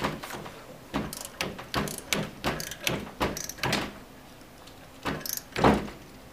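Ratchet of a click-type torque wrench clicking in short, irregular runs as flange bolts are tightened, with a louder knock of metal near the end.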